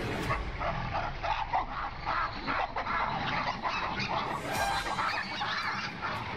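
A troop of baboons giving many short, overlapping barking calls, several a second, as they mob a leopard.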